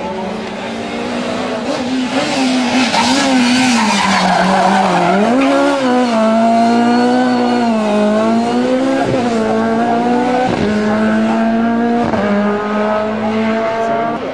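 Rally car engine revving hard as the car slides through a hairpin, with tyres squealing about two to five seconds in. It then accelerates away with several quick gear changes, the engine note dropping and climbing again each time.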